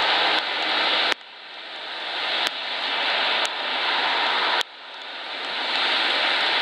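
Steady rush of the flood-swollen Snoqualmie River running near flood stage. The level drops suddenly twice and swells back each time.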